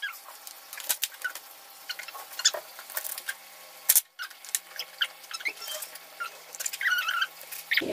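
Kitchen knife chopping sawi (mustard greens) on a cutting board: a quick, irregular run of taps as the blade cuts through the stems and strikes the board.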